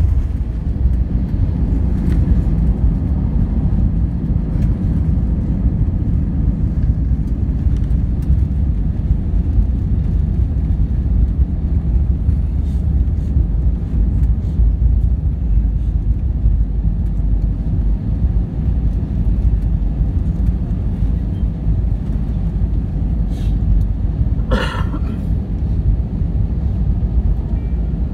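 Cabin rumble of an Airbus A320-200 rolling out along the runway after landing, ground spoilers up: a loud, steady, deep roar of engines, wheels and airflow. A short, higher-pitched sound cuts through the rumble near the end.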